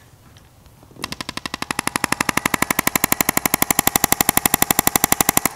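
Handheld chiropractic adjusting instrument firing a rapid, even train of clicking impulses, about a dozen a second, as it delivers repeated impulses into a patient's spine. The clicks start about a second in, grow louder over the first second, then stop abruptly near the end.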